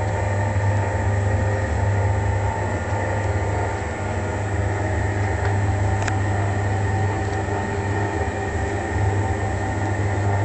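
Mirror grinding and polishing machine running steadily while polishing a 10-inch telescope mirror: a constant motor hum with a strong low drone and several steady tones. There is a faint tick about six seconds in.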